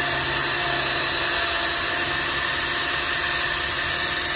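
Electric drill running at full speed with a cut-off wheel fitted, grinding steadily through the trunk of a tree: a constant whine over a hiss.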